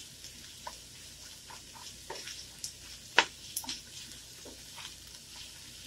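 Diced carrots and onion sautéing in a frying pan with a gentle, steady sizzle while a wooden spatula stirs them, giving scattered light scrapes and taps on the pan, the sharpest a little after three seconds in.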